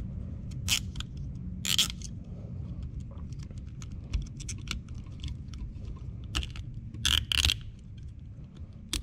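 Nylon zip tie being pulled tight through its ratchet head: runs of small rapid clicks, with a few louder zipping pulls about a second in, just before two seconds, and twice around seven seconds.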